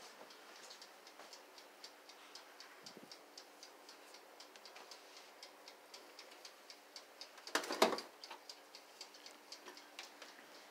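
Faint, steady mechanical ticking, about three ticks a second, with a brief louder rustling clatter about eight seconds in.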